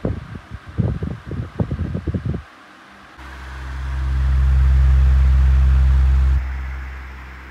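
Miyako KAD 1207 12-inch desk fan running, its air blowing onto the microphone: gusty rumbling pulses for the first couple of seconds, then a loud steady low rumble that builds and drops off suddenly near the end, leaving a quieter steady whir.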